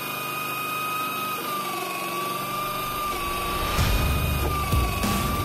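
Low-cost electric drill running steadily at full speed, its motor giving a high whine that wavers slightly in pitch. The chuck has just been adjusted and no longer has any play.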